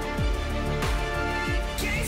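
Background music with a steady beat: deep bass kicks that drop in pitch, about one every two-thirds of a second, under held chords.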